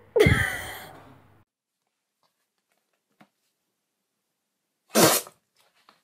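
A fart sound with a fluttering, falling pitch lasting almost a second, then a short sharp burst about five seconds in.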